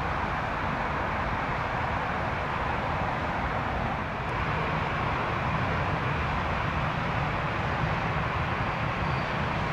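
Jet airliner engines heard as a steady rushing noise with a low rumble, growing slightly louder about four seconds in.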